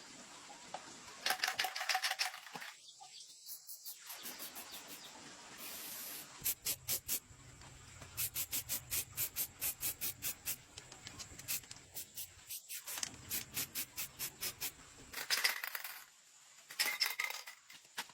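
Repeated sharp taps or knocks, about three to four a second, in several runs, with denser clattering bursts near the start and near the end.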